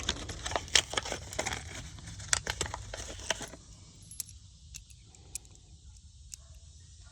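Quick clicks and light metallic clinking of small parts as a replacement tractor tire valve stem and its nut are handled and fitted into the rim, busiest in the first few seconds and then only a few scattered ticks.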